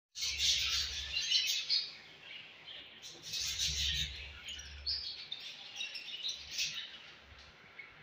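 A flock of budgerigars chattering and chirping together in a dense warble of many overlapping calls. It is loudest in the first two seconds and again around three to four seconds in.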